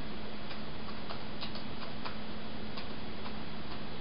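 Computer mouse clicking at an irregular pace, a few light clicks a second as letters are picked on an on-screen keyboard, over a steady low hum and room hiss.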